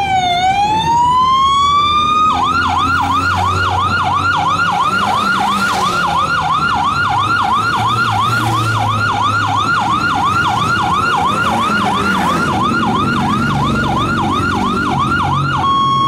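Emergency-vehicle siren sounding over the rumble of passing motorcycles. It wails slowly up and down for the first two seconds, then switches to a fast yelp of about three cycles a second, and changes to a stepped pattern of steady tones near the end.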